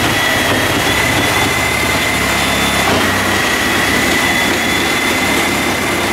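Reciprocating saw running steadily as it cuts into a door frame, its motor whine holding an even pitch with a brief dip about three seconds in.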